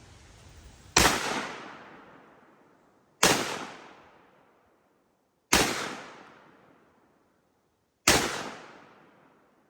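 Four single shots from a 7.5-inch-barrel AR pistol in .300 Blackout, spaced about two to two and a half seconds apart, each report trailing off over about a second and a half.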